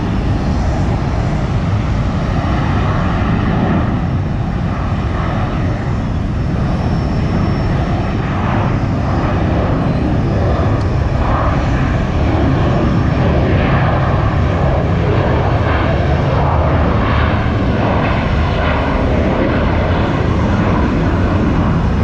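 Jet airliner's engines at takeoff power during the takeoff roll and liftoff, a loud steady rumble that grows a little louder about halfway through.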